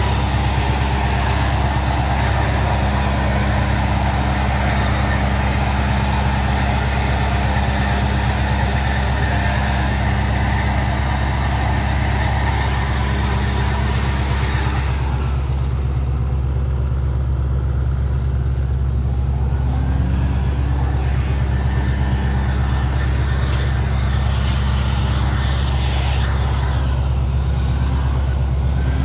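Wood chipper's engine running steadily with a deep low hum. For the first half a loud rushing noise rides over it, then cuts off sharply about halfway through, leaving the engine running on its own with a few faint short rising and falling tones near the end.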